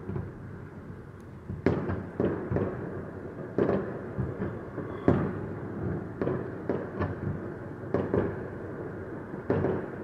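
Fireworks display: about a dozen sharp, irregularly spaced bangs from launching and bursting shells, each trailing off in a short echo.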